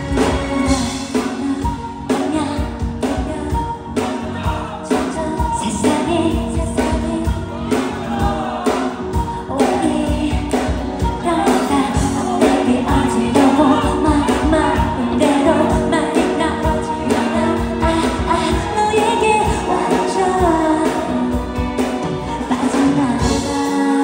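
Live pop song: a female vocalist sings into a handheld microphone over a band, with a steady drum beat, amplified through the hall's sound system.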